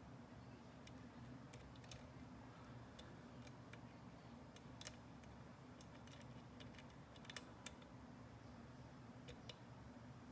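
Faint, irregular small metal clicks of a lock pick working the pins in the keyway of a GEGE lock, a few of them louder, over a low steady hum.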